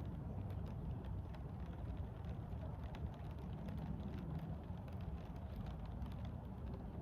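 Steady rain outdoors: scattered light ticks of drops over a constant low rumble.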